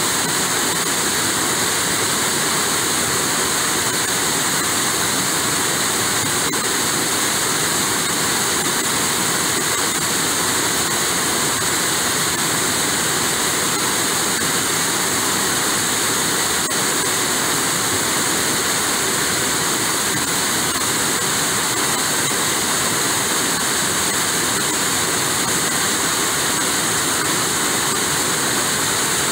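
Rushing river water: a steady, loud rush from rapids and water spilling over a low dam.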